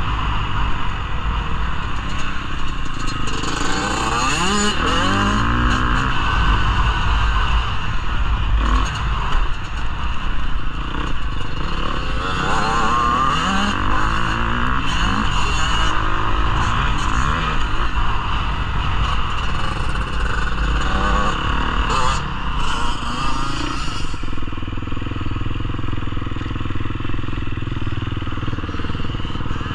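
Motocross bike engine heard from on board, revving up and falling back repeatedly as it rides through the gears. Near the end the revs drop to a lower, steadier run as the bike slows.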